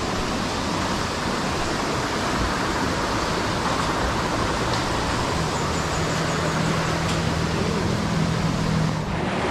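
Steady rush of flowing water, with a low steady hum joining about halfway through and stopping shortly before the end.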